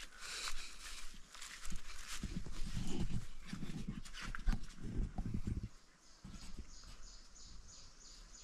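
A dog eating chapati, with a run of short, irregular low chewing and grunting noises and clicks between about two and six seconds in.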